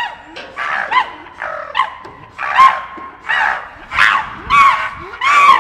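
Chimpanzees screaming: a quick run of short, high, wavering calls, about two a second, growing louder about halfway through. This is the agitated calling of a squabble within the group.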